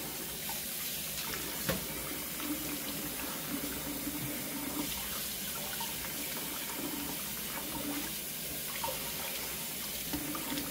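Kitchen faucet running steadily into a stainless steel bowl of water in a sink, with splashing and small sounds of hands rubbing a fish fillet under the stream as it is rinsed clean.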